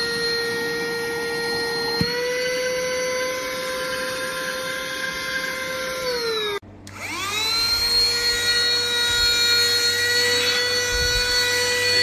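A HAN RIVER cordless vacuum cleaner's motor runs with a steady high whine. About two seconds in it clicks and the pitch steps up slightly. Near the middle it winds down, then spins back up to a steady whine.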